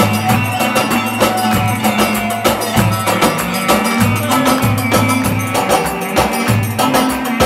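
Live Turkish çiftetelli dance music: a clarinet playing the melody over a steady davul bass-drum beat.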